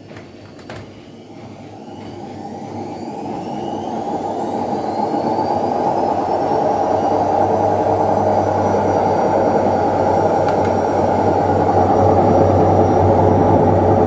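Indesit WIL 85 front-loading washing machine starting its spin cycle with two wet towels in the drum: a couple of clicks from the control knob, then the motor's whine rises over about five seconds and levels off as the drum comes up to spin speed. A steady rumble and rush from the spinning drum grows louder and holds.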